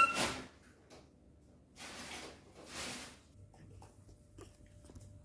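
A sharp knock right at the start, then two brief soft rustling sounds about two and three seconds in, followed by faint scattered clicks.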